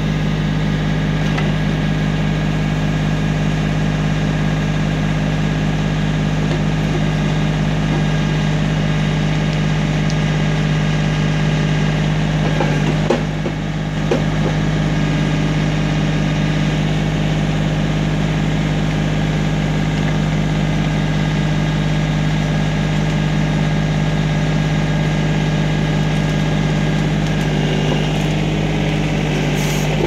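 John Deere compact tractor's diesel engine running steadily at working speed, powering the backhoe's hydraulics while the bucket digs a trench. A couple of knocks sound about 13 seconds in.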